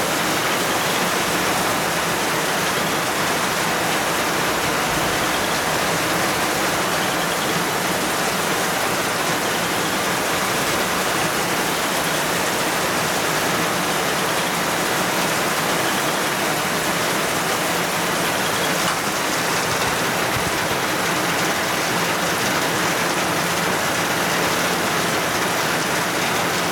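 Heavy rain pouring steadily, an even hiss that does not let up.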